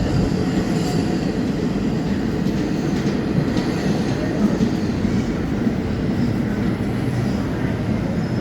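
New York City subway 5 train running, heard from inside the car: a steady low rumble of wheels on track.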